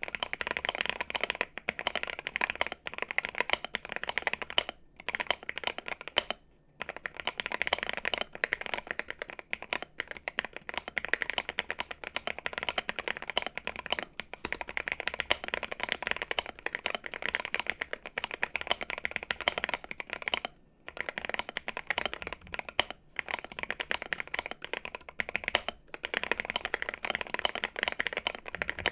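Continuous fast typing on an Akko MOD005 65% gasket-mounted aluminium keyboard with an FR4 plate: a dense stream of poppy, clacky keystrokes with a few short pauses. The build has lubed switches, a tape-modded PCB, PE foam under the switches, lubed Holee-modded stabilizers and double-shot PBT keycaps.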